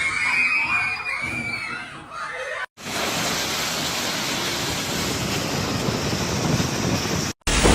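People screaming and shouting, then after a sudden cut a steady, even rush of water for several seconds.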